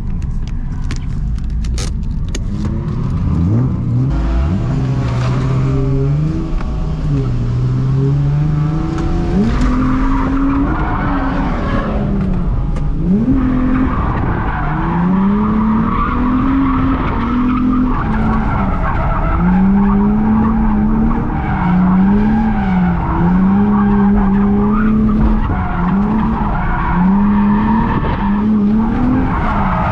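Infiniti G35's V6 engine, heard from inside the cabin, revving up and falling back again and again as the car drifts, with tires squealing. There are a few sharp clicks in the first couple of seconds.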